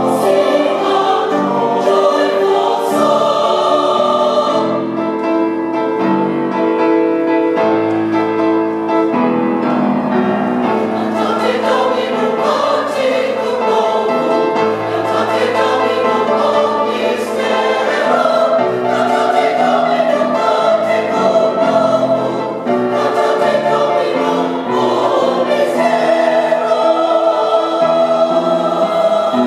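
Mixed church choir of men and women singing in parts, holding long chords that move from note to note.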